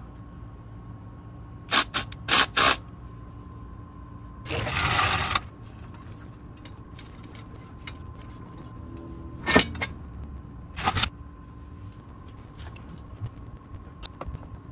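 Hand tools and a floor jack clanking against metal under a van: a handful of sharp clicks and knocks, with a harsher rattle lasting about a second near the middle.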